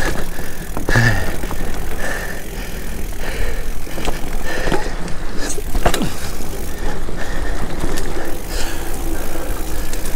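Mountain bike rolling fast along a sandy dirt singletrack, its tyres rumbling over the ground under a steady low rumble. The bike knocks and rattles over bumps, with a few sharp knocks scattered through.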